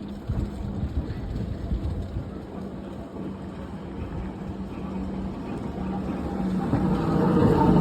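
Historic 'Kleiner Hecht' tramcar with its trailer car running on track: a steady low hum over a rumble, growing louder over the last second or so as it comes closer.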